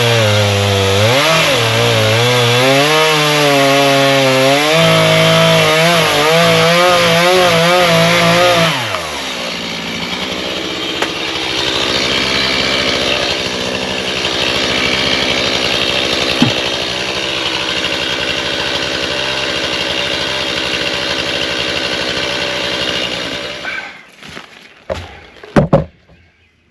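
Two-stroke chainsaw running loud, its pitch wavering as the throttle is worked. About nine seconds in, the sound turns rougher and noisier, typical of the chain cutting through wood. It stops near the end, followed by a few sharp knocks.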